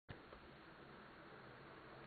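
Near silence: faint room hiss, with one faint click at the very start.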